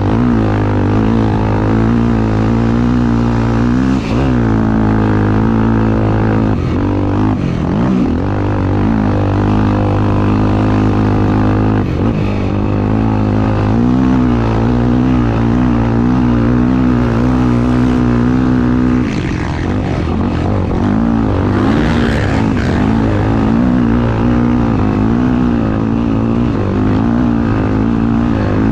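Motorcycle engine running hard under racing load, its pitch climbing and falling as the throttle opens and closes, with short dips at gear changes or throttle lifts about 4, 7, 12 and 19 seconds in.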